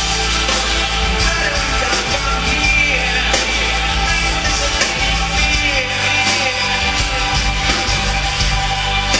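Live rock song: a strummed twelve-string acoustic guitar with a man singing.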